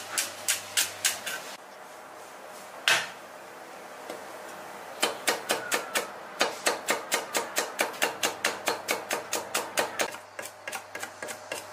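Cleaver chopping scallion whites and garlic on a round end-grain wooden chopping board, mincing them fine: quick, even knocks about four a second. A short run of knocks comes first, then a lull with a single knock, then a longer run that grows slightly fainter near the end.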